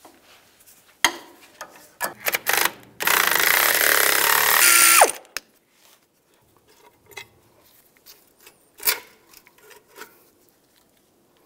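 Ratchet and tool clicks on the caliper bracket bolts, then about three seconds in a power tool runs for roughly two seconds, its pitch falling as it stops, spinning out a bracket bolt. Scattered metal clicks and a sharp knock follow as the loosened bracket is handled.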